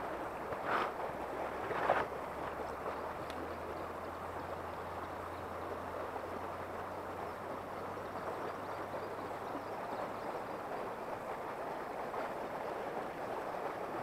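Shallow river water running over a gravel riffle: a steady rushing, gurgling flow, with two brief scuffs in the first two seconds.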